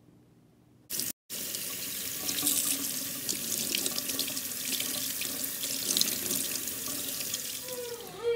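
Kitchen tap running, cold water splashing steadily over the freshly steamed sticky rice cake rolls to cool them. It starts suddenly about a second in, and a guitar note comes in at the very end.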